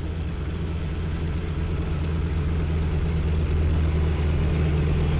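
Boeing Stearman biplane's radial engine running throttled back at about 1000 rpm on a landing approach: a steady low drone that slowly grows louder.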